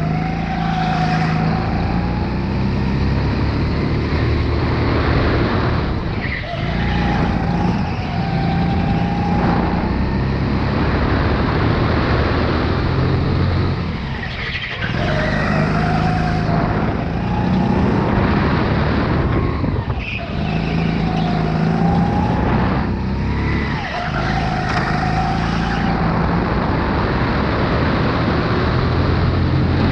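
Sodi RX8 rental kart's single-cylinder four-stroke Honda GX390 engine at full throttle, revving up along the straights and dropping sharply about four times as the throttle is lifted for the tighter corners.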